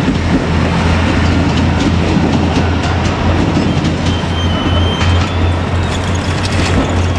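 KiHa 200 diesel railcar running by, a steady low engine drone under a broad rumble from the train.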